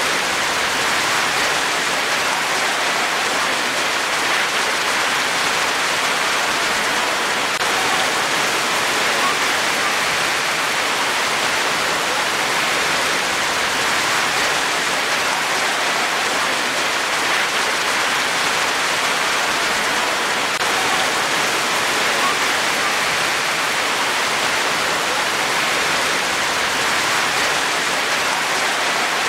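Rain falling steadily: an even, unbroken hiss with no single drops or thunder standing out.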